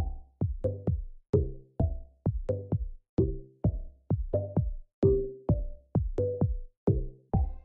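Intro music with a steady, regular beat of punchy bass-heavy hits.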